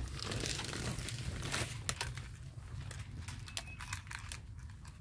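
Rustling and crinkling of a greenhouse's plastic cover and mesh netting being pushed aside, loudest in the first second and a half, followed by scattered light clicks and knocks.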